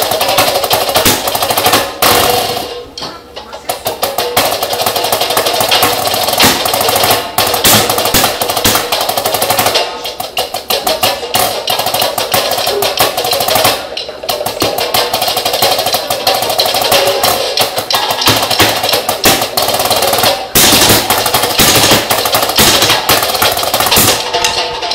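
Drumsticks played fast on a rubber drum practice pad: a snare drum solo of rapid strokes and rolls, with a few short breaks between phrases.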